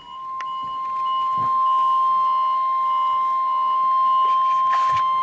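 NOAA Weather Radio warning alarm tone, the single steady 1050 Hz tone, coming through the speaker of a Midland 74-200 weather radio. It swells over the first second or so, then holds level and cuts off abruptly at the very end. It is the station's weekly test of the warning alarm that sets off alert receivers.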